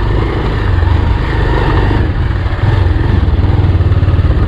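Motorcycle engine running steadily while riding, with a low rumble and road noise throughout.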